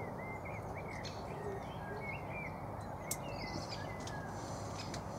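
Small birds chirping, many short quick calls, over a steady low outdoor background noise, with one faint click about three seconds in.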